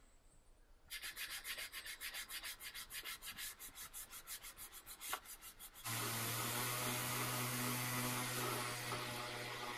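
Hand sanding of a curved wooden chair rail with a sanding sponge, in quick even back-and-forth strokes about six a second. About six seconds in, a Festool random orbital sander with a foam pad starts up and runs steadily with a hum and a hiss of abrasive on wood.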